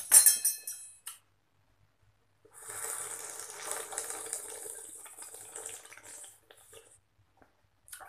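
A metal spoon clinks sharply against a dish, then, after a short pause, a mouthful of broth is slurped and eaten noisily from the spoon for about four seconds.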